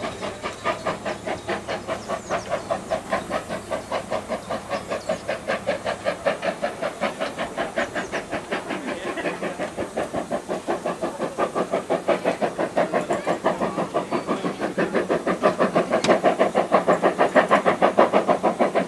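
Steam locomotive exhaust beating in a rapid, even rhythm of about five chuffs a second as the engine runs away along the line, growing louder in the last few seconds.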